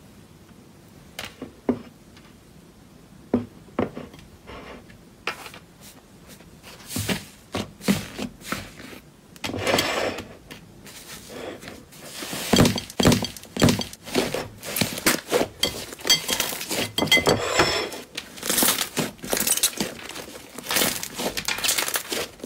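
Slime being pressed and squeezed by hand in a bowl, crackling and popping. It starts with a few scattered clicks and becomes dense crackling from about nine seconds in, loudest in the second half.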